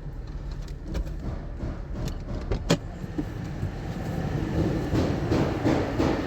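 Toyota Camry Hybrid's four-cylinder petrol engine running after its injectors were cleaned and fuel filter replaced, now smooth, with the misfire gone. There is a sharp click near the middle and a louder rushing stretch near the end.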